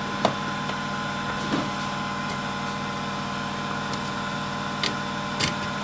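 Steady machine hum from the Up Mini 2 3D printer, with a few light clicks and taps as its print bed plate is slid out and handled.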